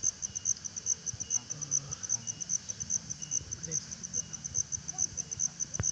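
Insects chirping in a steady, even, high-pitched pulse, about six or seven chirps a second, with faint murmuring voices underneath and a single click near the end.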